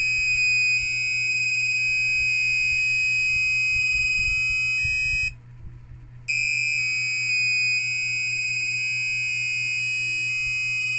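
Buzzer driven by an Arduino Uno playing a sequence of twelve different tones, each a steady beep of about half a second stepping to a new pitch. The sequence stops about 5 s in, and after a gap of about a second it plays again.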